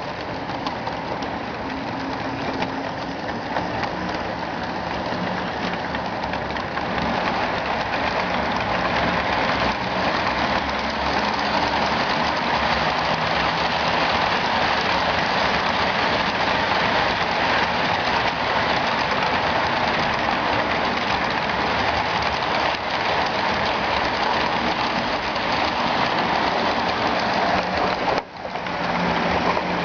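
HO-scale model train running on the layout: a steady rush of wheels rolling on the rails and small electric motors humming, growing a little louder over the first several seconds, with a brief dip near the end.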